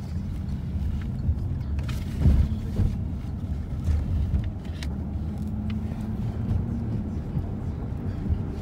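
Engine and road rumble inside the cabin of a moving car, steady and low, with one louder thump a little over two seconds in.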